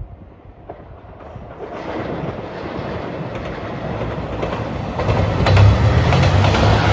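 JR Shikoku 2700 series diesel limited express train approaching and passing close by. Its rumble grows steadily louder, and about five seconds in a low diesel engine hum and a run of wheel clicks over the rails come in as it draws level.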